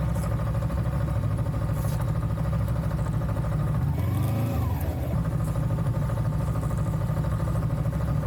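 Vehicle engine running steadily while driving, over a heavy low rumble, with a brief rise in revs about four seconds in.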